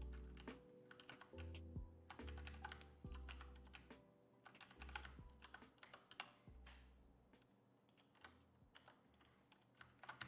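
Computer keyboard typing: quiet, irregular key clicks in clusters, over soft background music with held low notes.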